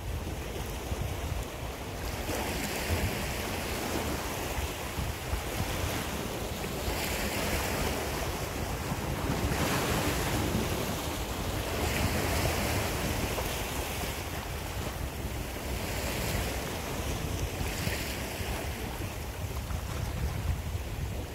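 Sea waves washing in and breaking against a rocky shore, swelling into a hiss every few seconds, over a steady low rumble of wind on the microphone.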